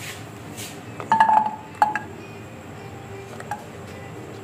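Kitchenware clinking: two sharp, briefly ringing clinks about a second in and just before two seconds, then a faint one later, over a low steady background.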